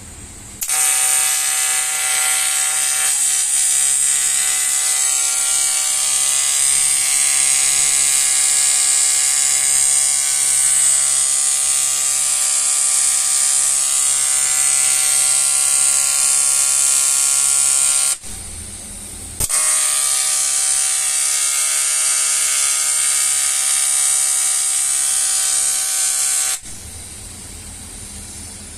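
Argon TIG welding arc on a cast aluminium alloy wheel, a steady electric buzz with a high hiss. The arc runs in two long stretches, breaking off for about a second partway through and stopping again near the end.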